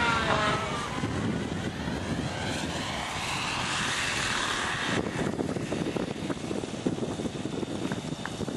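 Align T-Rex 600 Nitro RC helicopter's two-stroke glow engine and rotors running hard in flight, with a whine that shifts in pitch. About five seconds in, the high whine drops out suddenly, leaving a lower, rougher running sound.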